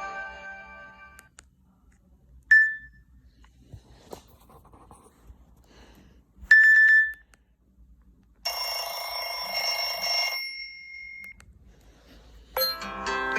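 Nokia C2-01 mobile phone's ringtones playing through its small speaker: a melodic ringtone fades out, then come two short single beeps several seconds apart, a dense chiming tone lasting about two seconds, and near the end the next melodic ringtone begins.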